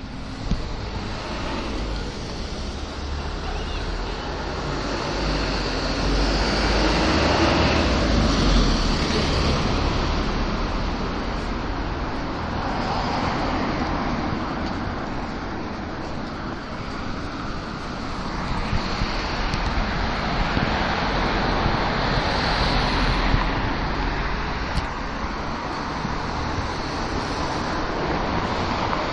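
Road traffic: cars passing on a street, a steady noise with a low rumble that swells louder twice as vehicles go by.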